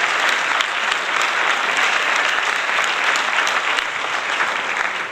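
Steady crowd applause, a dense continuous clatter of many hands clapping.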